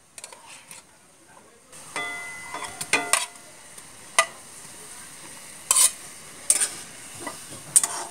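Metal spoon scraping and clinking against a steel bowl and an aluminium wok as fried taro pieces are slid into heating coconut milk: several sharp clinks, some briefly ringing. Under them a steady hiss from the hot pan, stronger from about two seconds in.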